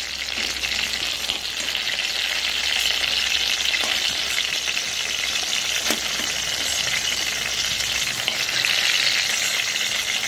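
Hot mustard-style cooking oil sizzling steadily in a kadai as fried brinjal pieces are lifted out with a metal spatula, with a few light knocks of the spatula against the pan.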